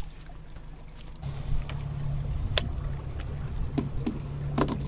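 Low, steady hum of a bow-mounted Minn Kota electric trolling motor, switching on about a second in, with a few light clicks and knocks on the boat over it.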